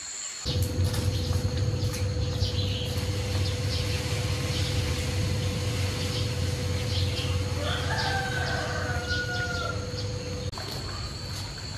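A rooster crows once, about eight seconds in, over scattered small-bird chirps and a steady low rumble.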